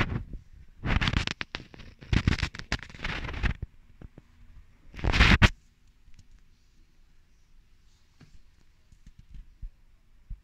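Rustling, rubbing noise from a hand-held phone being moved about, in several loud stretches over the first five or six seconds, then only a few faint ticks.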